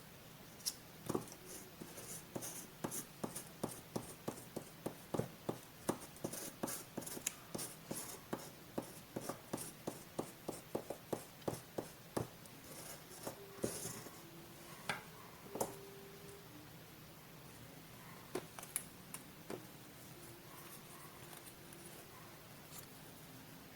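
Close-up paper collage handling: a quick, even run of small crisp clicks, about three a second, through roughly the first half, then only a few scattered clicks and light handling sounds.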